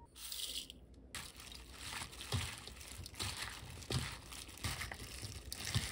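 A hand in a disposable plastic glove tossing dressed eggplant and green chili pieces in a perforated stainless steel bowl. The glove crinkles, the oily vegetables squish, and there are irregular soft knocks against the metal.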